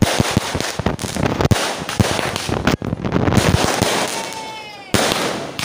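Fireworks bursting overhead: rapid sharp bangs and dense crackling of exploding stars. About four seconds in, a short falling whistle-like tone sounds, then another loud burst near the end.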